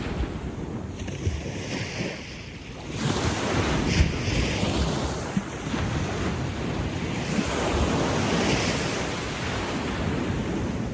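Gentle sea waves breaking and washing up a sandy beach: a new wave surges in about three seconds in and its wash runs on, slowly easing. Wind rumbles on the microphone underneath.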